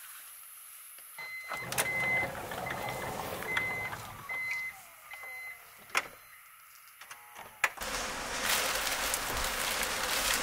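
A run of about six short, high beeps, spaced a little under a second apart, mixed with a few sharp clicks and knocks. Near the end a steady rushing noise sets in and is the loudest part.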